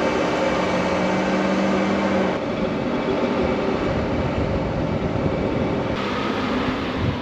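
Ford Ranger four-wheel drive towing a caravan across soft sand, its engine running under load with a steady hum, mixed with tyre and wind noise on an outside-mounted camera. The sound changes abruptly about two and a half seconds in and again about six seconds in, where the footage is cut.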